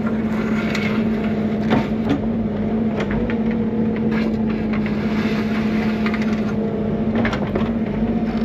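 Bobcat E55 mini excavator's diesel engine running steadily under load, with scattered knocks and scraping as the bucket works gravel.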